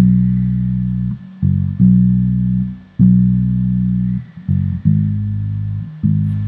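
Electric bass guitar playing a simple verse bass line: low notes plucked and left to ring about a second each, with a few short quick notes in between.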